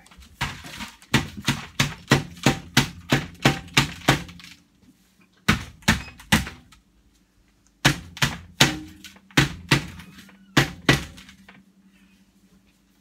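A section of black stovepipe knocked and banged to shake soot and creosote out of it: runs of sharp thunks, about three a second, with short pauses between the runs.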